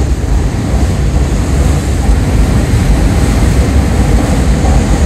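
Loud, steady rushing roar with a heavy low rumble, heard from inside a commuter train carriage as another train streaks past close alongside on the next track.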